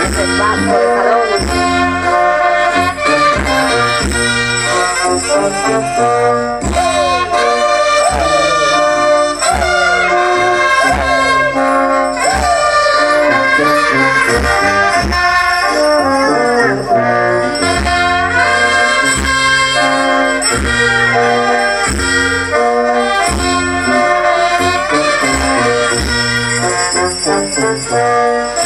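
Brass band playing dance music for a Negritos dance, trumpets and trombones carrying the tune over a steady beat, with jingling bells.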